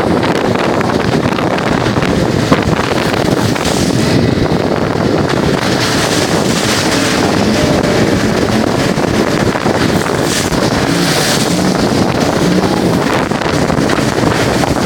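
Wind buffeting the microphone over the steady running of a boat's motor, with brief gusts of hiss now and then.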